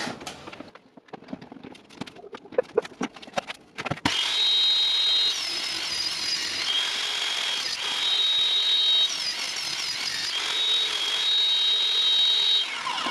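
Electric saw cutting a melamine particleboard panel: a few knocks and clicks of handling, then about four seconds in the saw starts up and cuts with a steady high whine for about eight seconds before it stops and winds down.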